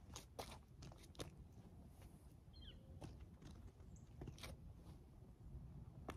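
Faint, irregular crunches and scuffs of boots on a snow-dusted path, over near silence.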